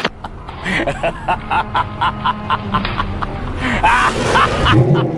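A quick run of short snickering laughs, several a second, over background music.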